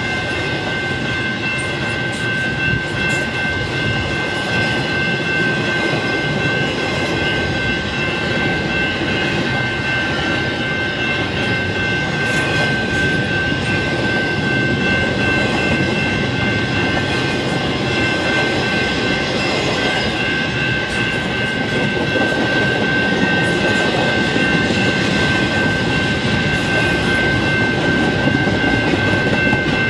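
Double-stack intermodal train of well cars rolling steadily past at a grade crossing: a continuous rumble and clatter of wheels on rail, growing slightly louder in the last third. Steady high tones ring over it from the crossing's General Signals Type 2 electronic bell.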